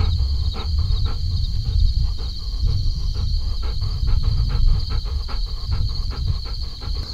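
Yellow Labrador retriever panting rapidly close to the microphone, about five quick breaths a second, over a steady high chirring of crickets and a low rumble.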